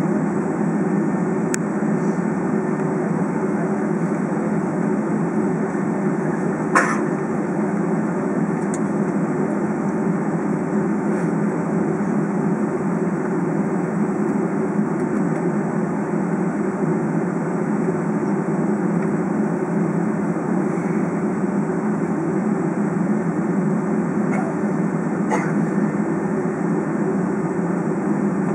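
Steady low rumble inside the cabin of a Boeing 757 airliner taxiing on idling engines. A sharp click about seven seconds in and a fainter one near the end.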